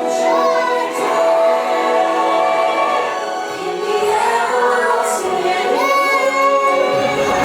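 A group of young children singing a song together in chorus, with musical accompaniment.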